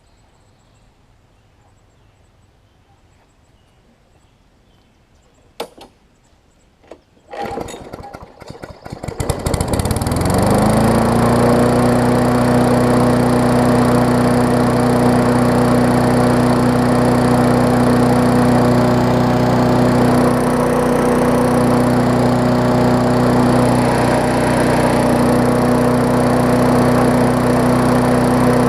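Craftsman push mower's Briggs & Stratton Classic single-cylinder engine pull-started after a couple of clicks, catching on the pull and settling into steady running. It runs on a freshly replaced carburettor diaphragm and new spark plug.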